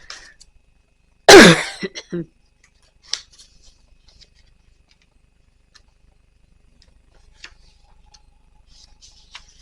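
A person's short, loud, breathy vocal sound, falling in pitch, about a second in, followed by faint scattered clicks.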